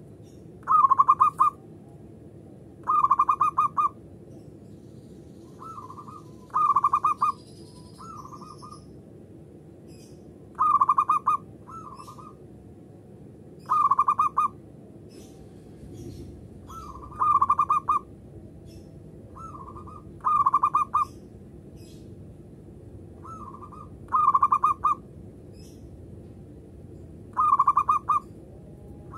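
Zebra dove (perkutut) cooing: about nine loud, rapidly pulsed coos, one every three to four seconds, with softer, shorter coos between some of them.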